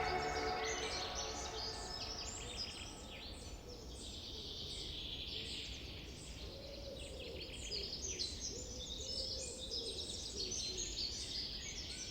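Faint chorus of many small birds chirping, with dense overlapping short high calls, and a lower warbling call joining about halfway through.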